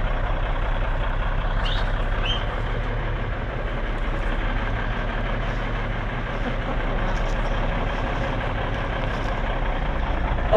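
1988 Kenworth K100E's Cummins Big Cam IV 400 diesel engine running steadily, a constant low drone.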